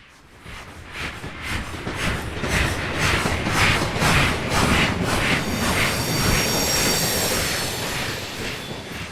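Steam locomotive passing, its exhaust chuffing about twice a second and growing louder, with a thin high squealing ring joining in about six seconds in.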